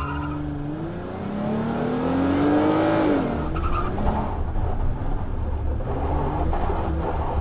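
Small motor of a miniature DIY construction machine running with a low rumble. Its pitch rises over a second or so, then drops back and settles.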